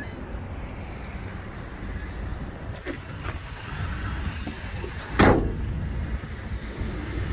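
Ford F-250 Super Duty's 6.2-litre gas V8 idling with a steady low rumble. A few light clicks come about three seconds in, and a single loud slam a little past five seconds.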